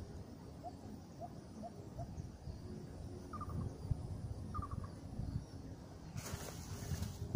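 A bird calling outdoors: four short rising chirps, then two quick runs of higher, rapid notes, over a steady low wind rumble on the microphone. Near the end comes about a second of rustling noise.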